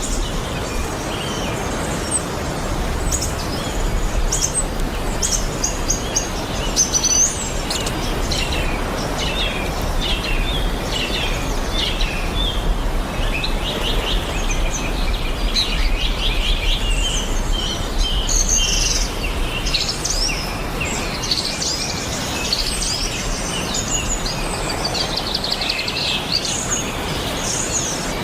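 Several small birds chirping and trilling in quick, overlapping phrases, over a steady low rumble.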